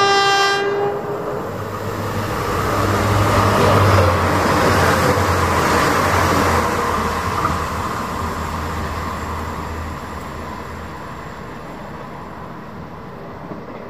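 A train horn sounding a steady note cuts off about half a second in. Then an Irish Rail passenger train passes at speed: a low rumble and rail noise build to a peak about four seconds in and fade away slowly.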